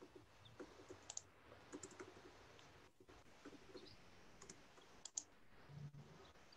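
Faint, scattered clicks of someone working a computer, a few at a time, over near-silent room tone.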